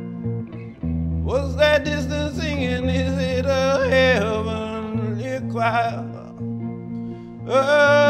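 Electric guitar played through a small amplifier under a man singing long, high notes that slide and waver. The voice enters about a second in, drops out for a short phrase in the middle, and comes back near the end.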